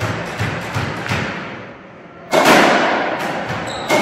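A squash ball bouncing softly on the wooden court floor a few times, then two loud racket strikes on the ball about a second and a half apart, each a sharp crack that rings on around the hard-walled squash court.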